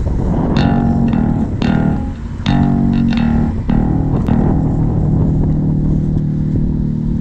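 Guitar music with bass: a few plucked chords strummed in the first four seconds, then a held chord.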